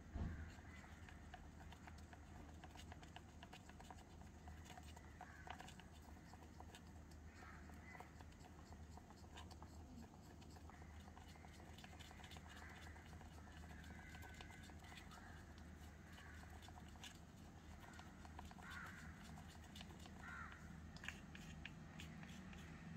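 Very quiet handling of miniature steel bowls as batter is poured from one into the other: faint scattered clicks and light scrapes over a low steady hum, with one louder clink right at the start.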